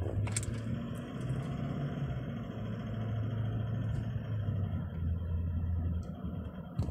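Car engine and road noise heard from inside the cabin while driving. A low engine hum shifts in pitch a few times and drops away about six seconds in, with a sharp click just after the start.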